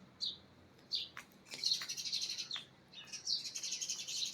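Small birds chirping: a few short high chirps, then rapid chattering runs of chirps starting about a second and a half in and again just past three seconds.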